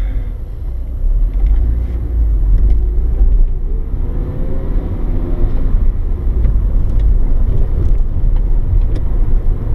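Cabin sound of a Mitsubishi Lancer Evolution 6.5's turbocharged 2.0-litre 4G63 four-cylinder engine and road rumble as the car drives. It gets louder about a second in, and the engine note rises and falls a few seconds later.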